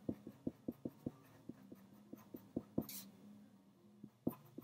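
Pencil writing on paper: a quick run of short strokes and taps, with a longer scratchy stroke about three seconds in.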